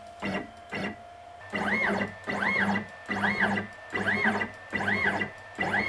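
Stepper motors of a MillRight Carve King 2 desktop CNC router jogging the gantry. It starts with a few short ticks, then from about a second and a half in comes a run of short moves, each a whine that rises and falls in pitch, about one every three-quarters of a second.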